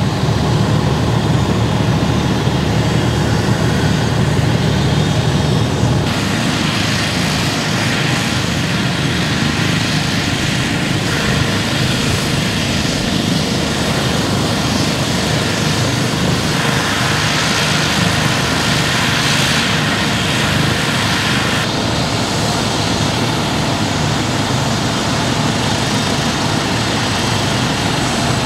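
Medical helicopter running, a loud steady noise with a low hum underneath; its tone shifts a few times.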